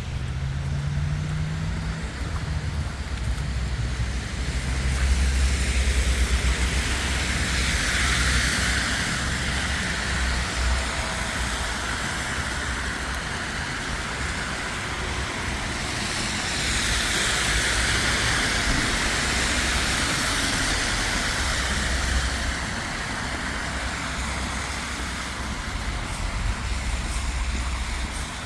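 City street traffic: vehicles passing, their tyre hiss swelling and fading twice over a steady low rumble.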